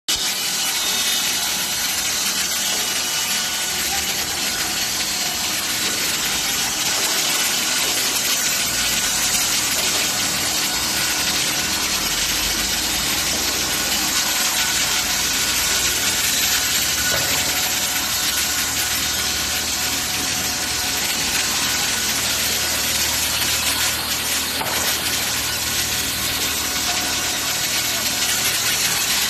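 Yongpeng YP-5A-400 five-axis bridge saw's water-cooled blade cutting through stone slab: a steady, high grinding hiss with no break.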